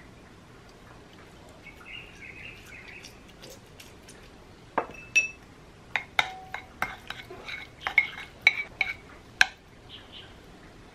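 A small wooden spoon stirring diced raw salmon in a ceramic bowl, knocking against the bowl in a quick run of about a dozen sharp clinks, some with a short ring, over about five seconds. Before that, a faint squelch of a lemon half being squeezed.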